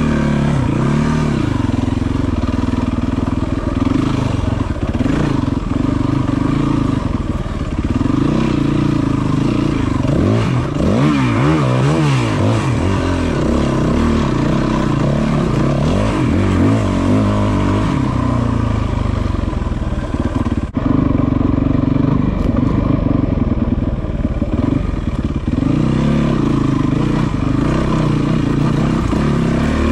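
Yamaha WR450F's single-cylinder four-stroke engine running as the enduro bike rides a rocky trail, its revs rising and falling with the throttle. There is a brief dropout about two-thirds of the way through.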